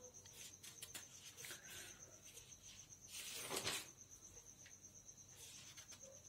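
Near-silent room tone with a faint, steady, high-pitched pulsing trill. A brief soft rush of noise comes about three and a half seconds in.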